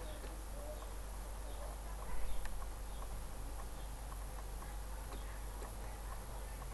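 Quiet room tone with a steady low hum, faint scattered ticks, and one brief louder noise about two seconds in.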